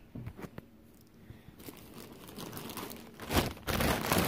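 A bag being handled, rustling and crinkling, quiet at first and much louder from about three seconds in.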